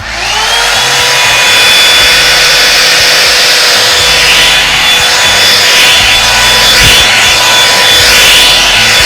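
Revlon One-Step hair dryer brush switched on: its motor whine rises in pitch over the first half second as it spins up, then runs steadily with a loud rush of air and a high whine on top.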